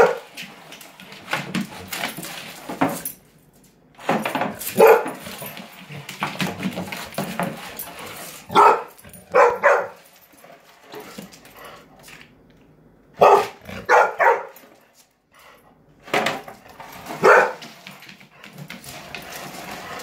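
Golden retriever barking excitedly at a snow shovel, a bark or two at a time every few seconds.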